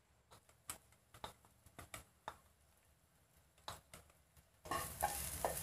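A scatter of light clicks and taps, then, about 4.7 seconds in, chopped garlic hits a little hot oil in a non-stick wok and starts sizzling steadily, with small crackles.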